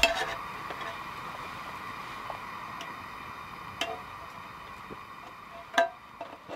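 A fork or spoon clinking and scraping against a metal camp plate, with a handful of light clinks and the loudest near the end. Under it runs the steady hiss of a propane fire pit's flame.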